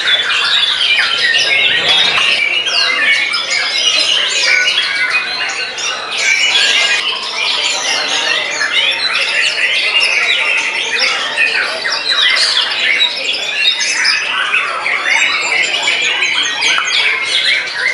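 White-rumped shama (murai batu) singing a continuous, rapid song of varied whistles and chattering phrases.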